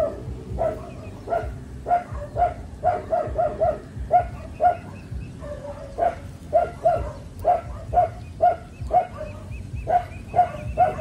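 Ducks calling in a run of short, nasal quacks, about two a second, repeated unevenly throughout.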